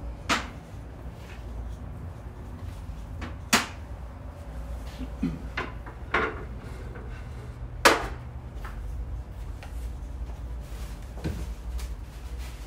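Dishes and platters set down and moved on a wooden table: about five separate sharp knocks and clunks, the loudest about eight seconds in, over a low steady rumble.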